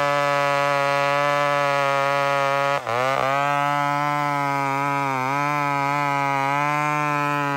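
McCulloch Mac 10-10 two-stroke chainsaw running at high revs. About three seconds in its pitch drops sharply and recovers, and after that it wavers up and down as the chain loads in the cut.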